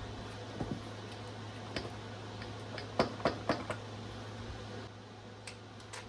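Light clinks and knocks of tools and bolts as a starter motor is fitted to a diesel engine, scattered singly with a quick run of four about three seconds in, over a steady low hum.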